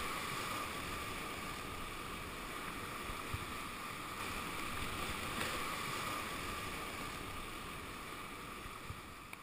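Steady rush of river water, slowly fading toward the end.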